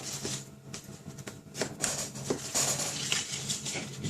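Scored folds in a strip of card being burnished flat: a run of short, irregular papery rubbing strokes with a few light taps.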